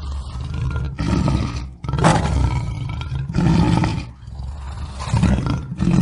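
Lion roaring: a run of deep roars, a new loud one starting roughly every second or so.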